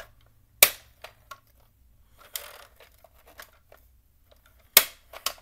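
Hard plastic clicks and snaps from a Bruder toy excavator's arm and fittings being worked by hand: two loud sharp clicks, one about half a second in and one near the end, with lighter ticks and a short rustling scrape in the middle.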